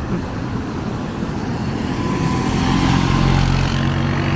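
A quad ATV's engine running as it drives past, growing louder from about halfway through and loudest near the end, over the steady rush of heavy surf.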